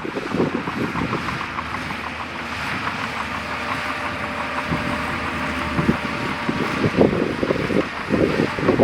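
Diesel engine of heavy earthmoving machinery running, with wind buffeting the microphone. It is louder and rougher near the end.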